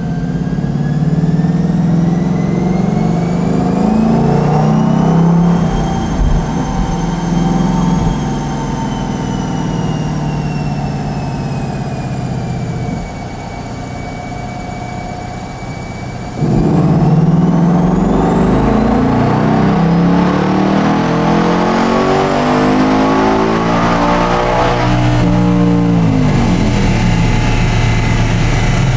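Mustang Dark Horse's 5.0-litre V8, fitted with a prototype twin air intake, running on a chassis dyno: it builds speed at part throttle, then a little past halfway goes to full throttle for a wide-open-throttle power pull, the engine note and a whine climbing in pitch until near the end, where it eases off and starts to fall.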